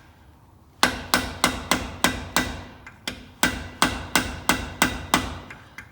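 Hammer blows on a stuck CV axle to drive it out: quick ringing metallic strikes, about three a second, starting about a second in with a short break near the middle.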